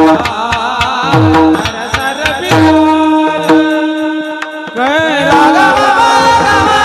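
Varkari kirtan chal, a devotional tune, sung with ornamented sliding phrases over steady held accompanying notes. An Indian hand drum plays sliding bass strokes, with sharp cymbal-like clicks. In the middle the drumming thins to sustained notes, then the singing comes back in with a rising slide.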